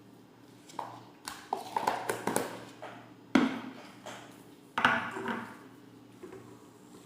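Clatter of kitchen utensils and containers being handled: a scatter of short knocks and clicks, the sharpest about three and a half and five seconds in.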